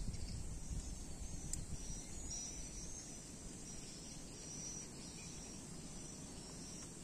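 Wind rumbling on the microphone, easing after the first couple of seconds. Insects chirp high and faint in short repeated calls from about two seconds in.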